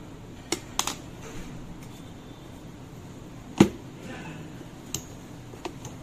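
Handling of a plastic collapsible camping lantern: a few light clicks and rattles, with one sharp knock about three and a half seconds in, the loudest sound.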